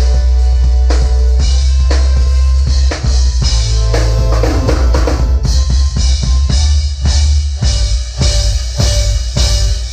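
Live band playing a groove with a drum kit to the fore, kick and snare hitting a steady beat over a heavy bass line and sustained chords.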